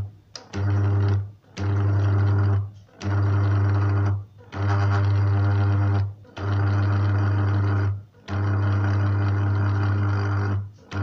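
Electric mini chopper's motor running in pulses with a steady low hum. There are about seven runs of one to two seconds each, separated by short stops, as it blends a thick paste of roasted peanuts, cocoa and honey.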